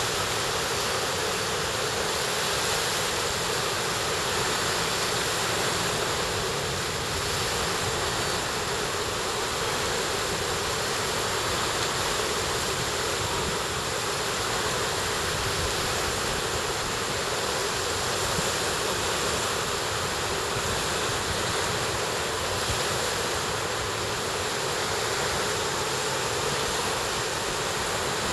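Steady wash of small surf breaking on a sandy beach, mixed with wind noise on the microphone, unchanging throughout.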